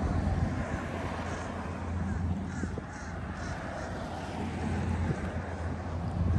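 A bird cawing, a quick run of about four short calls near the middle, over a steady low rumble.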